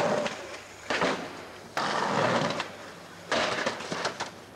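Skateboard wheels rolling and clattering on concrete in rough surges that start suddenly and fade, with a few sharp clacks near the end.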